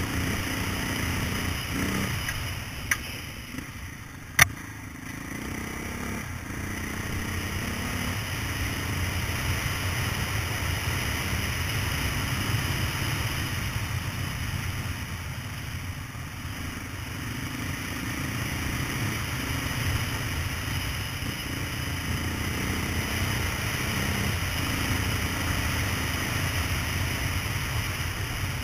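Off-road motorcycle engine running along a rough dirt trail, heard from a mounted action camera, its note rising and falling with the throttle. Two sharp knocks stand out about three and four and a half seconds in.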